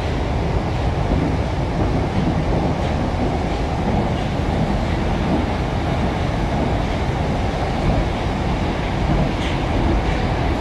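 Moscow Metro 81-775/776/777 electric train heard from inside the car while running between stations: a steady, loud rumble with a few faint clicks.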